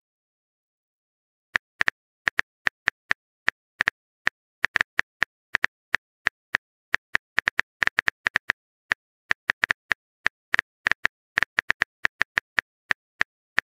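Phone keyboard typing sound effect: short, crisp key clicks at an uneven few per second, starting about a second and a half in, as a text message is typed out.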